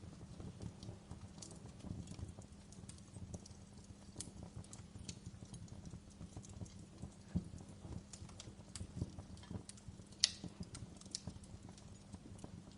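Wood fire crackling: irregular small pops and snaps over a low rumble of burning, with one sharper pop about ten seconds in.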